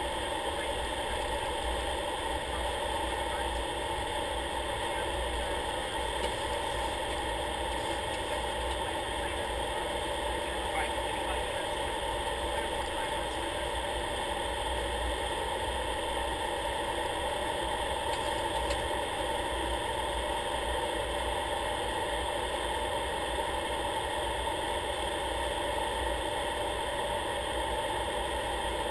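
Steady drone of an aircraft's engine in flight during the approach, with several constant tones over a low rumble and no change in power.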